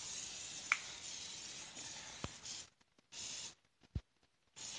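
A hiss that cuts off abruptly after a few seconds, then two shorter hisses, with a few sharp clicks in between.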